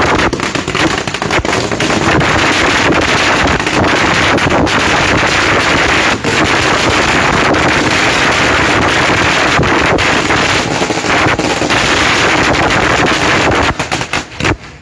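Firecrackers going off in a rapid, unbroken crackle of bangs, stopping about a second before the end.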